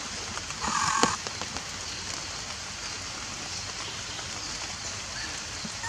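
Steady rain falling on leaves, with a brief louder sound about a second in.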